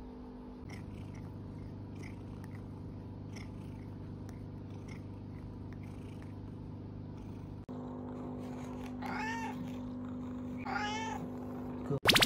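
Domestic cat meowing twice, two short rising-then-falling calls about a second and a half apart, over a low steady hum.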